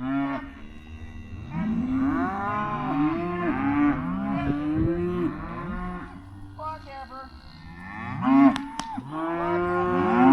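Freshly weaned beef calves bawling for their mothers: many loud moos overlapping from several animals at once, easing off in the middle and swelling again near the end.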